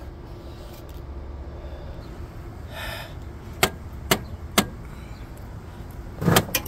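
Sharp metal knocks and clicks as a replacement alternator is worked into its mounting bracket on a 2015 Chevy Suburban engine: three single knocks about half a second apart midway, then a louder cluster near the end. A low steady rumble underlies it.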